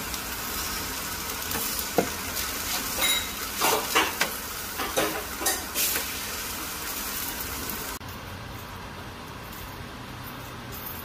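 Marinated chicken pieces sizzling on a hot foil-lined oven tray while being turned with a metal spatula, which clicks and scrapes on the tray several times between about 2 and 6 seconds in. The sizzle cuts off suddenly about 8 seconds in, leaving a quieter steady background.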